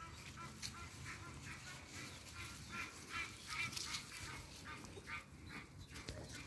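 Animal calls: a steady run of short honking calls, about three a second, fairly faint.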